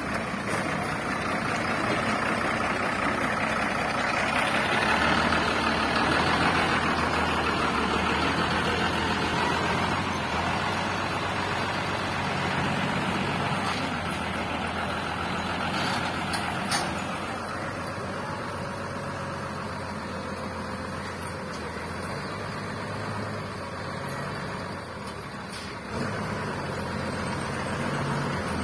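Tata lorry's diesel engine running as the loaded truck manoeuvres at low speed, louder through the first half, easing off about halfway through and picking up again near the end.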